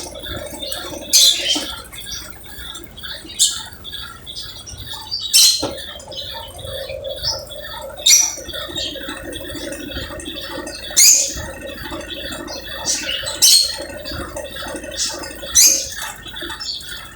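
Brastemp Ative 11 kg top-load washing machine running its spin program: a steady motor hum with a short, sharp squeak repeating about every two to three seconds.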